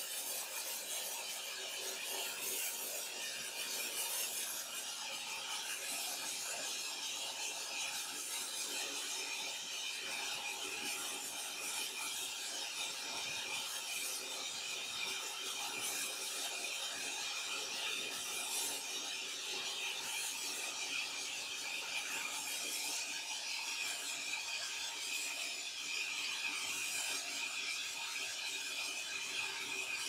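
A horizontal band sawmill blade cutting lengthwise through a log: a steady hissing cut with a high whine that grows stronger about two-thirds of the way through.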